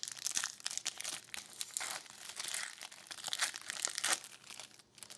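Foil hockey card pack wrapper being torn open and crinkled by hand, an irregular crackling that thins out near the end.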